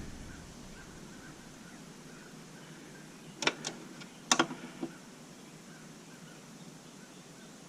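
Low background hiss broken by a few sharp clicks of equipment being handled, a pair about three and a half seconds in and another two around four and a half seconds.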